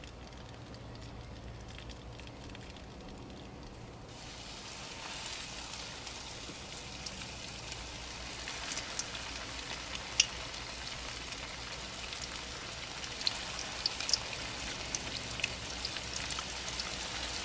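Panko-breaded lane snapper fillets frying in hot oil in a skillet: a sizzling hiss starts about four seconds in as the first fillets go into the oil and builds as more are added, with scattered crackles and pops.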